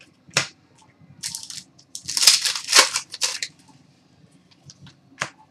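Trading cards being handled and slid across one another: a few short, scratchy swishes, bunched together about two to three and a half seconds in.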